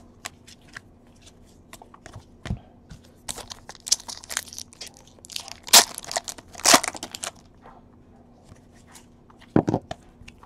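Hands shuffling trading cards with light clicks and slides. In the middle, a foil card pack is torn and crinkled, the loudest part. A dull knock comes near the end.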